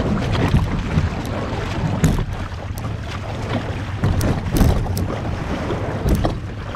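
Wind buffeting the microphone over moving water, a dense irregular low rumble, with scattered light knocks and taps.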